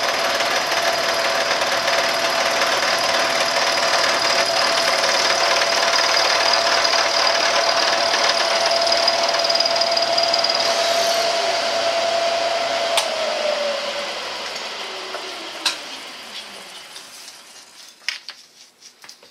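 A Bridgeport milling machine's end mill cuts a slot in an aluminum block by conventional milling: a steady, loud whine with cutting noise. About thirteen seconds in, the spindle is switched off and the whine falls in pitch and fades as it coasts down. A few light metallic clicks and taps come near the end.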